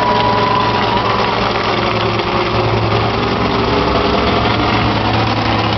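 Monster truck engine running steadily near idle as the truck rolls slowly on the dirt track. A thin high whine dies away about a second in.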